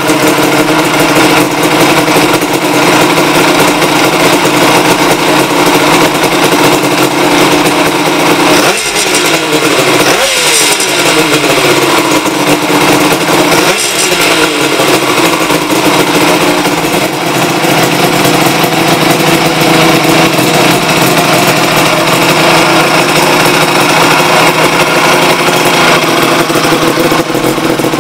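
Kawasaki KH250's air-cooled two-stroke three-cylinder engine idling through a Sugaya collector expansion chamber exhaust. The throttle is blipped three times, about nine, ten and a half and fourteen seconds in, each rev falling back to idle.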